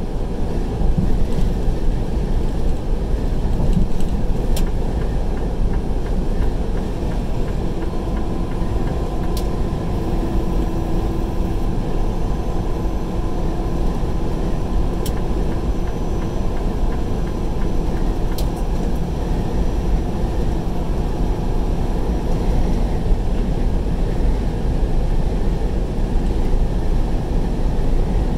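Steady engine and road noise inside a vehicle's cab at highway speed, with a low rumble and a few faint ticks.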